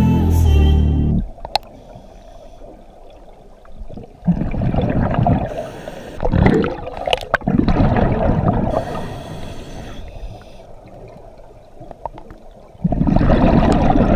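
Background music ends about a second in. Then scuba exhaust bubbles rise and bubble past the underwater camera in bursts, a long stretch in the middle and another near the end, with quieter water between.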